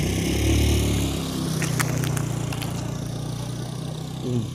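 Small motorcycle engine, just started, revving up during the first second, then running on steadily and growing gradually fainter, with a few light clicks in the middle.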